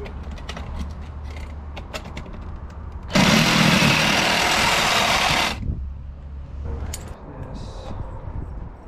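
Handheld cordless power tool run once for about two and a half seconds, starting a few seconds in and stopping abruptly, preceded by light clicks of handling.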